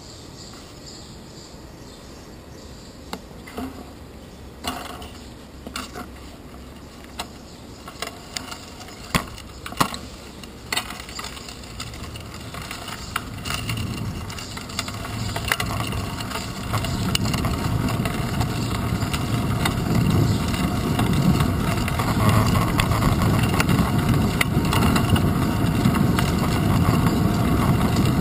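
Bicycle setting off and riding, heard from a camera on its handlebars: a scatter of sharp knocks and rattles as it gets rolling, then a rush of wind and tyre noise that grows steadily louder as it picks up speed.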